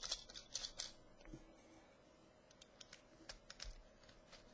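Faint quick clicking of polished steel threads as a battery tube is screwed onto a Lambo Transformer e-cigarette mod, thinning to a few scattered ticks after about a second.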